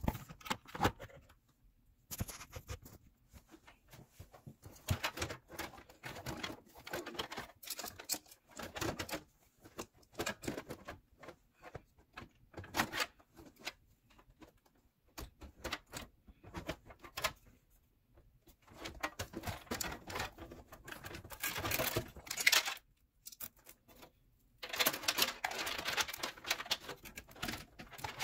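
Irregular clicking, tapping and rustling as hands fit a liquid cooler's radiator and fan into a PC case, plastic and metal parts knocking together.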